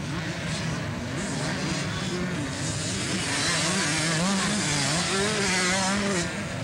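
Several two-stroke 125cc motocross bikes racing past, their engines revving up and down over one another. They grow louder about three seconds in and drop back near the end.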